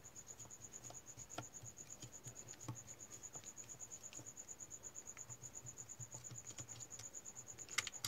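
An insect trilling: a steady high-pitched note pulsing about ten times a second. A few faint clicks come from a screwdriver backing out the gear-housing screws of an angle grinder.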